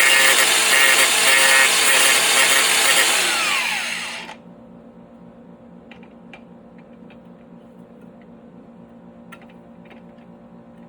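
Handheld power grinder running and grinding a plastic mount piece, loud and high-pitched, then switched off about four seconds in, its whine falling as it spins down. After that only a few faint clicks over a low steady hum.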